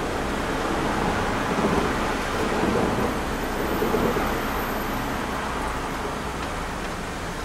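Hiroden 100-type tram car 101, a Taisho-style wooden streetcar, running along the rails, heard from inside the car: a steady noise of wheels and running gear, a little louder about two seconds in.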